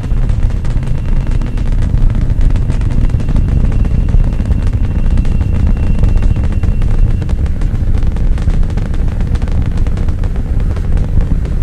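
Saturn V rocket's five F-1 engines during ascent: a loud, steady, deep rumble with continuous crackling.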